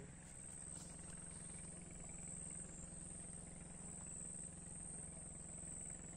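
Steady low hum, like a motor, running without change, with a continuous high-pitched insect chorus above it.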